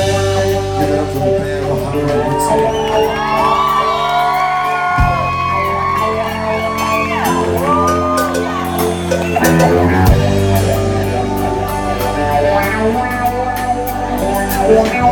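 Live rock band playing loudly: electric guitar, bass guitar and drum kit under a male lead singer, whose voice is strongest from about 2 to 10 seconds in.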